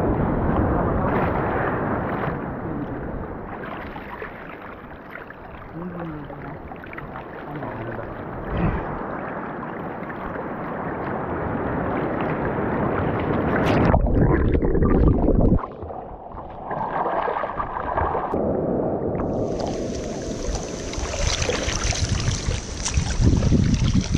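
Wind buffeting the microphone over sloshing sea water at the shore. About halfway through comes a heavy low rumble lasting a second or two, and a few seconds later a brighter, hissing rush of wind and surf sets in.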